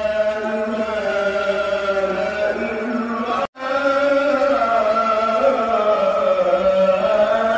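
A voice chanting from a mosque in long, slowly sliding held notes in the style of Islamic recitation. It breaks off for a moment about halfway through, then carries on.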